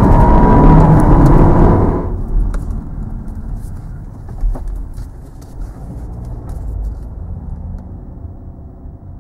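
Cabin sound of an Audi A4 Avant's 2.0-litre turbocharged four-cylinder diesel with road noise as the car slows from about 100 km/h. About two seconds in it cuts to a much quieter low-speed drive, the diesel running low in the rev range and fading out, with a few light clicks.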